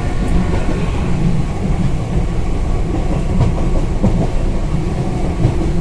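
Steady rumble of a moving commuter train, heard from inside the carriage.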